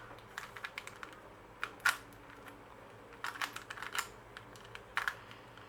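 Rubik's cube layers being turned by hand: irregular plastic clicks and clacks in short scattered clusters.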